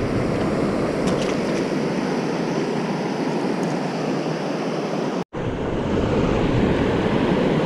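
Steady rush of water pouring over a low-head dam spillway, with a brief dropout a little past five seconds in.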